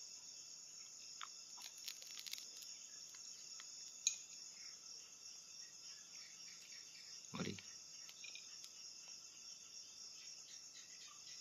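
Crickets chirping at night in a steady, high-pitched trill. A single sharp click comes about four seconds in, and a short falling sound a few seconds later.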